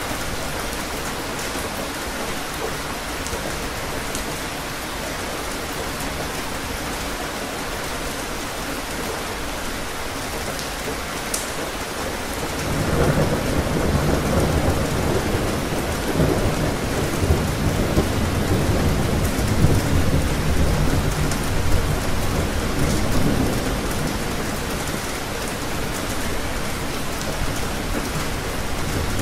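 Steady rain falling throughout, with a long rolling rumble of thunder coming in about twelve seconds in, swelling for about ten seconds and then dying away while the rain continues.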